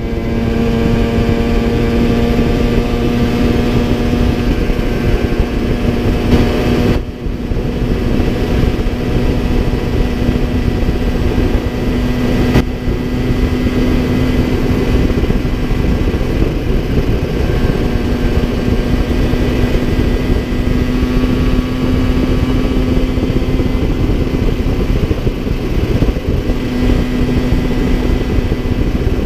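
Two-stroke Yamaha TZR50 engine with a 70cc big-bore kit running at steady road speed under heavy wind rush on the microphone. The engine note holds a fairly even pitch, with a brief dip about seven seconds in. The owner says the top end is worn and the engine well down on power.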